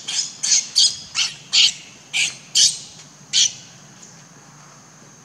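Infant macaque screaming: about eight short, high-pitched squeals in quick succession, stopping about three and a half seconds in.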